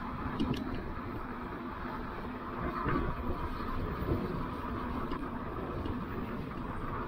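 Steady rush and rumble of wind over the microphone and tyres on pavement, from an electric bike riding at about 19 mph, with a few faint clicks.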